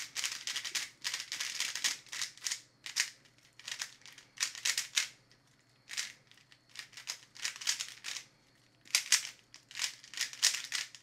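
MoYu Aolong V2 3x3 speed cube with a premium store setup, its plastic layers being turned by hand in quick flurries of moves with short pauses between them. The turning is already really smooth.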